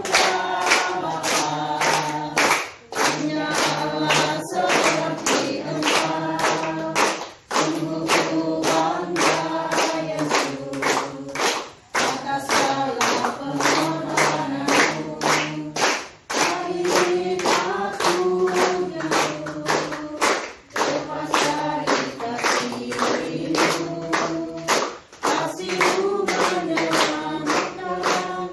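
A group of young people singing a song together while clapping their hands in a steady rhythm on the beat, with short breaths between phrases every few seconds.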